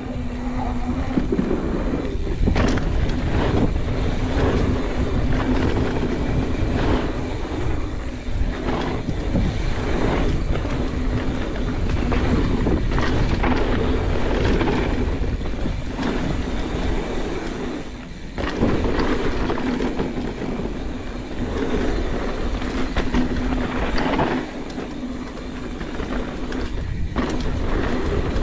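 Mountain bike ridden fast down a dirt trail: a constant rushing rumble of tyres on dirt with a steady low hum, knocks and rattles over bumps, and a brief lull about two-thirds of the way through.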